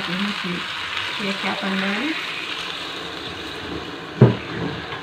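Rice, potatoes and beef sizzling in a pan as a wooden spoon stirs them, with water added partway so that the frying turns wetter. A single loud knock comes about four seconds in.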